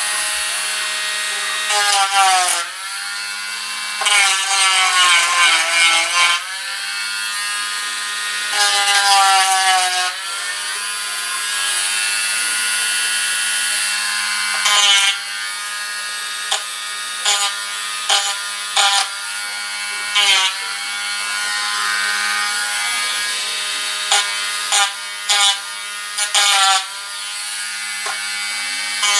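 Dremel Stylus cordless rotary tool with a sanding wheel, whining as it sands down built-up putty. The whine sags in pitch and recovers each time the wheel is pressed in, with several short louder bursts of sanding.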